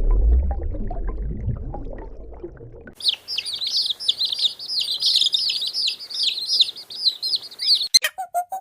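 A small bird twittering in quick, high chirps for about five seconds. It comes in abruptly about three seconds in, after a low rumbling animal sound fades out. Near the end a different, evenly repeated squeaky call begins.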